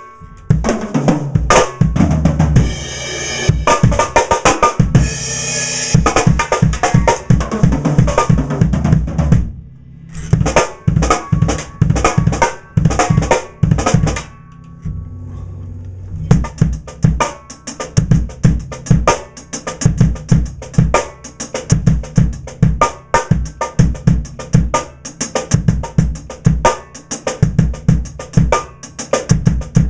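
Drum kit played in fast grooves and fills, led by a Pearl Firecracker steel-shell snare tuned very high, with kick drum underneath. There are brief breaks about a third of the way in and again near the middle, then a steady fast beat.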